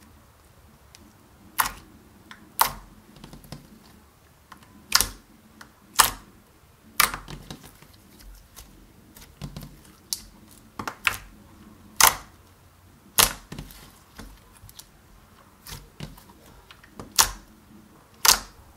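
Clear slime being kneaded with red thermal pigment powder, giving sharp, irregular clicks and pops about once a second, with softer squelches between them.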